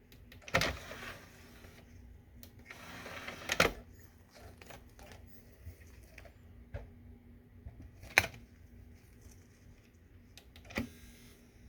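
Optical disc drive's eject mechanism trying to open: two short whirs of about a second from its small tray motor, the second ending in a sharp click, then single clicks later on, over a faint steady hum. The tray does not open, which the owner suspects is a bad motor, since the belt is fine.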